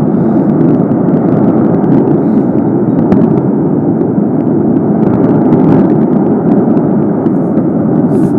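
Snow avalanche of melting spring snow sliding off a sheer rock face, heard from across the lake as a steady, loud rumble like thunder, with a few faint ticks over it.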